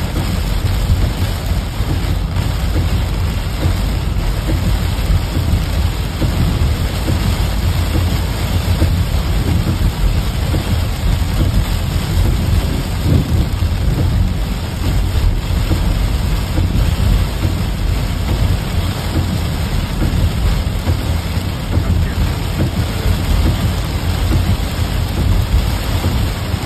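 Heavy downpour drumming on a moving car, heard from inside the cabin, with a steady low rumble beneath it.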